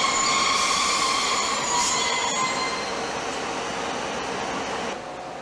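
Steel train wheels squealing in long, steady high tones over rolling rail noise. The squeal fades out about two and a half seconds in, and the rolling noise drops off near the end.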